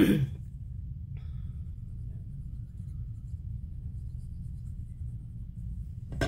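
Faint rustling and scratching of small paper pieces being handled and glued, over a steady low hum, with a light click near the end. A throat clearing cuts off at the very start.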